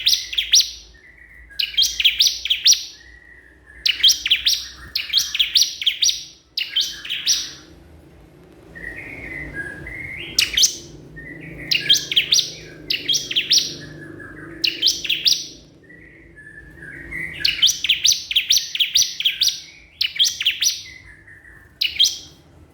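A bar-winged prinia (ciblek kristal) in full song, calling to a rival. It repeats phrases of fast, high, sharp chirps, about one every two seconds, with lower buzzy notes between them.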